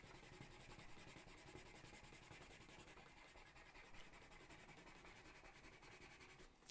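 Faint scratching of a colored pencil shaded hard over paper, the pencil core rasping steadily as the strokes lay down a yellow layer.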